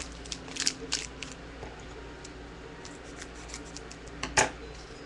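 Foil trading-card pack wrapper crinkling and crackling in the hands as it is opened, with a cluster of short crackles in the first second, scattered small ticks, and the loudest sharp crackle about four and a half seconds in.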